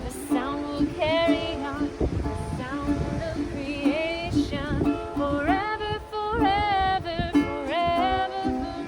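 A woman singing a gliding melodic line to a strummed ukulele accompaniment.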